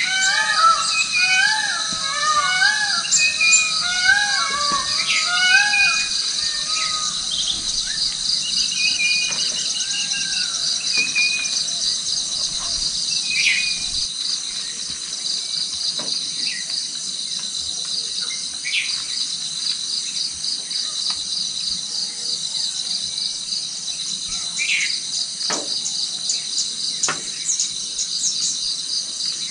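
Outdoor evening chorus: a steady, shrill, pulsing insect drone with birds calling over it. A quick series of rising-and-falling bird calls comes in the first several seconds, then thins out to scattered short chirps.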